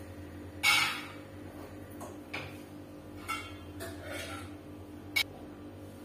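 Metal cookware clinking and knocking as steel pots, a lid and utensils are handled on a stove and stone counter, including a small aluminium pot gripped with metal tongs. About six separate clinks, the loudest about half a second in and a sharp one near the end, over a steady low hum.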